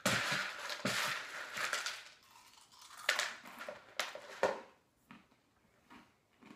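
Wooden spoon stirring and scraping around a plastic mixing bowl, with a few sharp knocks of the spoon against the bowl about three to four and a half seconds in. The stirring stops near the end.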